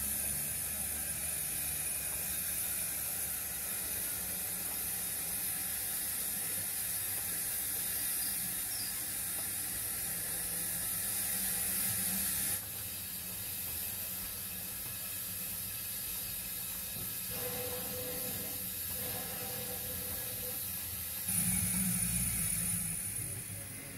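O gauge model steam tank engine and coaches running along the layout's track: a low rumble of motor and wheels under a steady hiss. The hiss cuts out suddenly about halfway through and comes back near the end.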